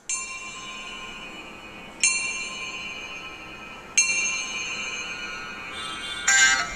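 Background music: a bell-like ringing tone struck three times, about two seconds apart, each one fading away slowly. Plucked-string music comes back in near the end.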